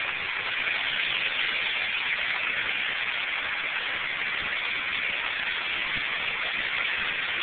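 Steady rush of a mountain stream tumbling over rocks, mixed with water pouring and splashing over the sides of a wooden flume.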